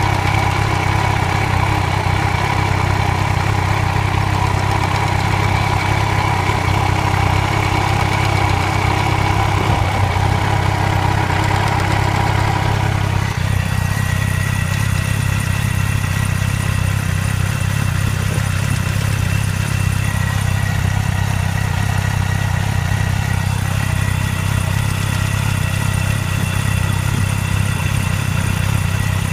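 Yamaha YZF-R1 (RN09) inline-four engine idling steadily, with the clacking noise (Klackern) its owner is asking about, which he says gets worse the harder the bike accelerates. The character of the sound shifts about halfway through as its middle tones drop away.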